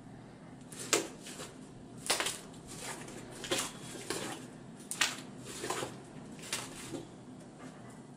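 Red slime being squeezed and kneaded in a fist, giving an irregular string of sharp wet squelches about once a second.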